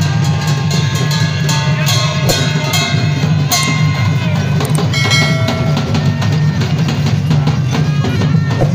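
Folk procession music: drums and large brass hand cymbals beaten in a steady rhythm, with held melodic notes sounding over them.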